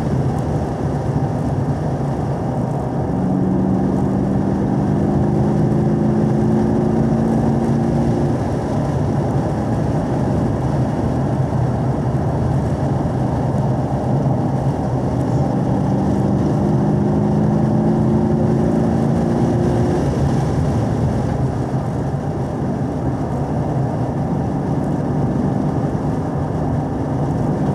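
2017 Camaro SS 1LE's 6.2-litre V8 running hard in fourth gear at around 3,000–4,000 rpm, heard inside the cabin under heavy road and wind noise. A steady engine drone stands out twice, a few seconds in and again midway.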